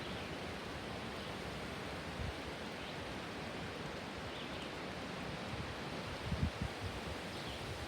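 Wind blowing through trees, a steady rushing of leaves, with low gusts buffeting the microphone about six seconds in. A few faint, short, high bird chirps sound over it.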